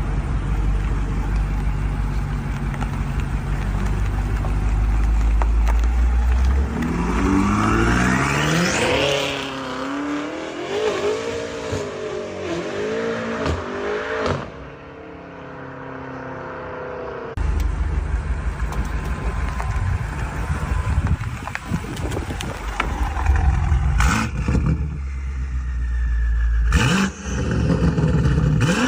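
Stage 2 tuned BMW M5 CS twin-turbo V8 accelerating hard and revving, its pitch climbing and then swinging up and down, with turbo whistle. Sharp cracks come twice near the end.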